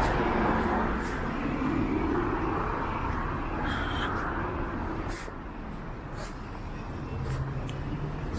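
Road traffic on a town street, with a vehicle passing that fades off about five seconds in.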